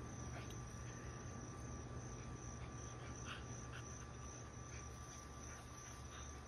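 Faint outdoor ambience: a steady high drone of insects over a low hum, with a few faint short sounds from small dogs playing in the grass.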